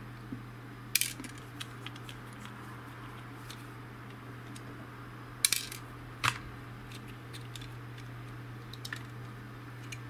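Clicks and clacks of a Panasonic VEQ-0935 remote control's plastic case, rubber keypad and circuit board being handled and pulled apart, with sharp knocks about a second in and again around five and a half and six seconds in, over a steady low hum.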